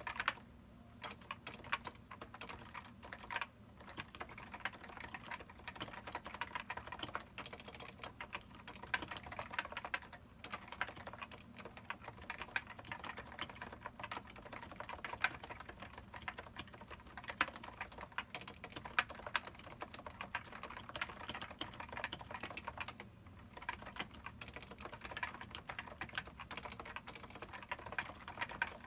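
Continuous typing on a Topre Type Heaven keyboard with 45g electro-capacitive rubber-dome switches and Hi-Pro PBT dye-sub keycaps, the sliders unlubed and the stabilizers lubed with Krytox 205. The keystrokes come fast and irregular, with a few brief pauses.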